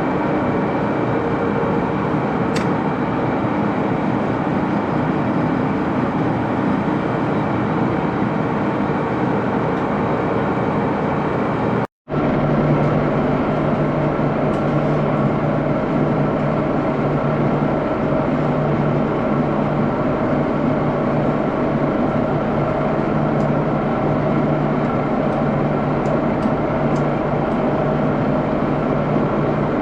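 Axelson lathe running with a steady mechanical hum. About twelve seconds in the sound cuts out for an instant and comes back with a different, lower hum.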